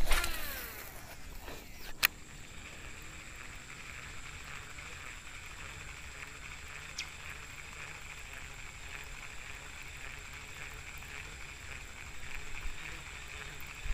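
Bullzen Iguana Velocity baitcasting reel's spool spinning out as a frog lure is cast, its whir falling in pitch as the spool slows, then a sharp click about two seconds in. After that, a steady high-pitched buzz.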